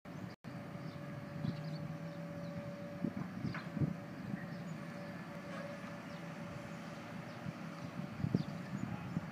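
Demolition excavator's diesel engine running steadily, with a few dull knocks as its bucket works at the brickwork.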